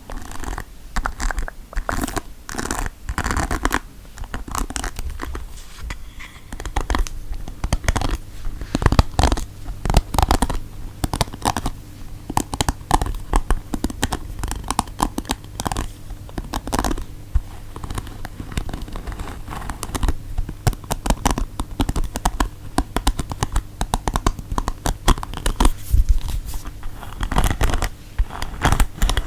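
Close-miked ASMR trigger sounds: objects being scratched and tapped in a dense, irregular run of scratches and taps.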